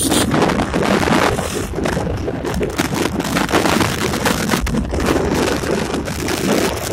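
Wind buffeting the microphone over the road noise of a moving vehicle, a loud, gusty rush.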